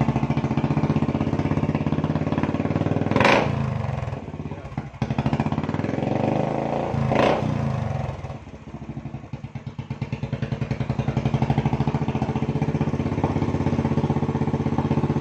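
Royal Enfield Classic single-cylinder engine running through an aftermarket stainless V-style exhaust, a steady beat of firing pulses that sounds like a helicopter. It is revved briefly twice, about three and seven seconds in, and settles back to idle each time.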